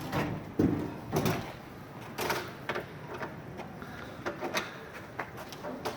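Irregular knocks and clatter of parts being handled during assembly work, with several sharp strikes at uneven intervals.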